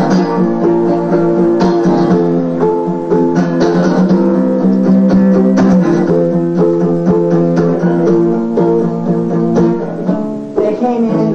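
Strummed acoustic guitar playing chords in an instrumental passage of a folk-punk song, with repeated strokes across the strings; it drops in level briefly near the end.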